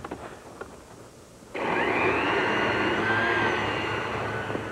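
Electric kitchen blender switching on about one and a half seconds in and running steadily, its motor whine rising briefly as it spins up, as it blends tofu, pineapple, milk and honey into a drink. A few light clicks come before it starts.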